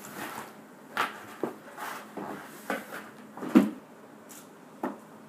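A quick, irregular run of knocks, thumps and rustles from a cloth-covered table and paper plates being handled roughly, about eight in all, the loudest thump about three and a half seconds in.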